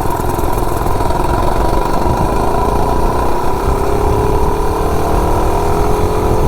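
Cammed 98cc single-cylinder mini bike engine with its governor removed, run at full throttle in a 0–30 mph acceleration run, its pitch climbing steadily as the bike gathers speed.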